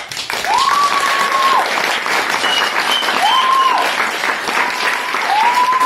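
Audience applause starting suddenly at the end of a stage performance, with several long whistles rising and falling over the clapping.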